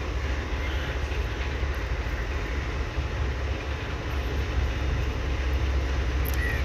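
Sri Lanka Railways Class M11 diesel-electric locomotive approaching with a passenger train, its engine rumbling steadily and growing a little louder as it draws near in the last couple of seconds.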